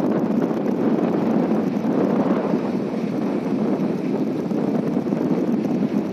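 Steady wind noise on the microphone aboard a moving vessel: an even rushing sound with no clear engine note.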